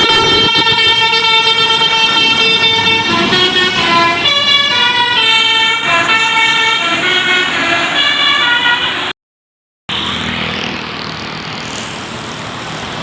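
A tour bus's telolet multi-tone musical horn playing a tune of stepping, changing notes for about nine seconds. It cuts off abruptly, and after a brief gap comes steady vehicle engine and road noise.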